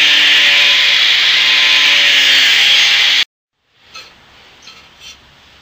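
Angle grinder with an abrasive disc running steadily against painted aluminium sheet, grinding the paint off, as a loud even hiss. It cuts off abruptly about three seconds in, leaving quiet with a few light knocks.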